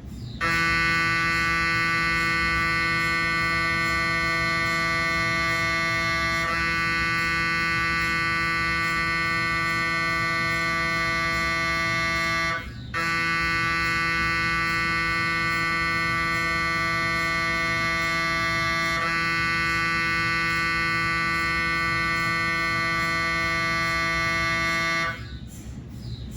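GE 3T Twinspeed MRI scanner's gradient coils sounding a cardiac pulse sequence: a loud, steady tone with many overtones that starts about half a second in, breaks off for a moment near the middle, and stops shortly before the end.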